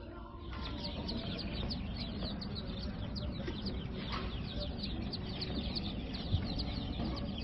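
A crowd of baby poultry chicks peeping nonstop in store brooder tubs, many short, high, falling peeps overlapping several times a second over a low steady hum.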